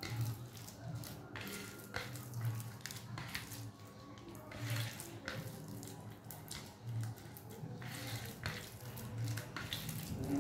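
A hand squishing and kneading mashed boiled elephant foot yam with mustard oil in a steel plate: wet, sticky squelches in an irregular run of strokes.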